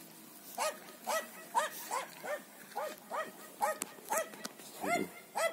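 A dog barking repeatedly in short, even barks, about two to three a second.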